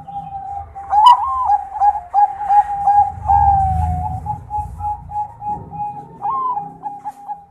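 Zebra dove (perkutut, Bangkok line) cooing: a rapid run of short notes on one pitch, with a higher swooping note opening the phrase about a second in and another shortly before the end.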